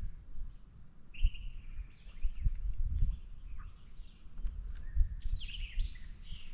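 Wild birds chirping and calling in short, high notes, starting about a second in and busier near the end, over a low, uneven rumble.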